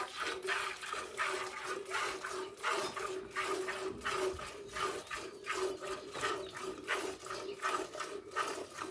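A cow being milked by hand: streams of milk squirting into a steel bucket in a steady rhythm, about two squirts a second as the two hands alternate on the teats.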